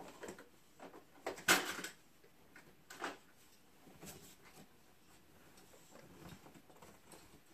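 Toy cars and race track pieces clattering and knocking as they are handled: a run of sharp clicks, busiest and loudest about one and a half seconds in, then fewer and fainter knocks.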